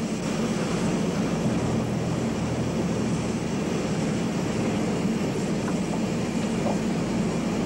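Steady hiss and low rumble from a metre-gauge compound 2-4-6-0 Mallet tank steam locomotive standing with its train.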